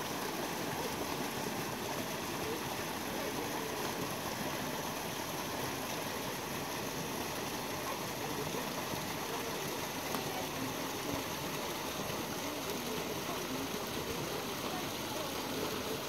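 Spring-fed stream flowing steadily, an even rushing of water.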